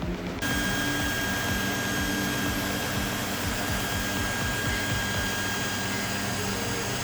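Cryptocurrency mining rigs' cooling fans and an exhaust fan running, a steady whir with a thin, constant high whine, starting abruptly about half a second in.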